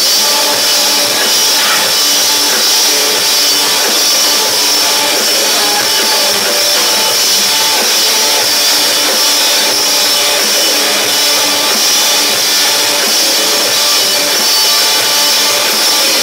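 Live rock band playing: electric guitars and a drum kit, loud and steady throughout.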